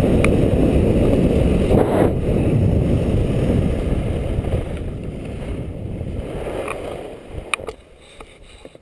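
Wind rushing over a helmet-mounted camera's microphone while sliding fast downhill on snow, with the scrape of the run over the snow. The rush eases and then drops away about eight seconds in as the descent slows, with a few sharp clicks just before.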